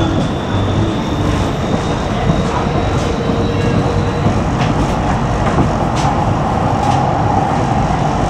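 Tram running at speed, heard from inside the passenger saloon: a steady rumble of wheels on rail with a faint high whine rising slightly, and a few sharp clicks.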